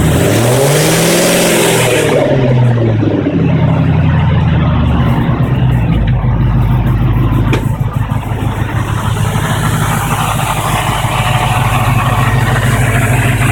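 FPV GT-E's 5.4-litre Boss V8 given one blip of the throttle: the revs rise over about the first second and fall back over the next few seconds, then it idles steadily.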